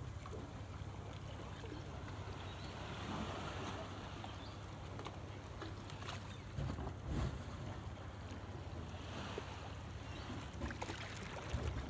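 Steady low rumble of wind on a phone microphone with water lapping at the shoreline, and a few soft bumps about seven seconds in and again near the end.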